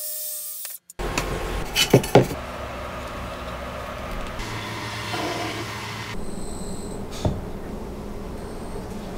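Plywood pieces being handled and rubbed on a work surface, with two sharp knocks about two seconds in.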